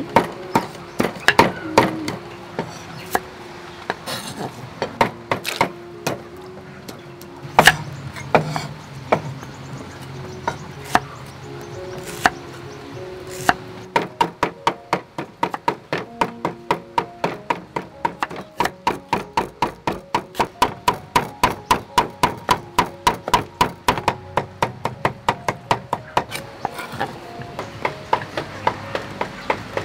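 Kitchen knife chopping young bamboo shoots on a wooden cutting board. Scattered single chops come first, then from about halfway through a fast even run of about four strokes a second, thinning out near the end.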